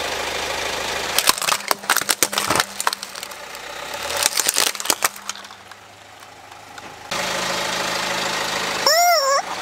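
Car tyre rolling over plastic toy robots, crushing them with many sharp cracks and snaps over a few seconds, over the car's running engine. Near the end a rubber chicken toy lets out one short squawk that rises and falls in pitch.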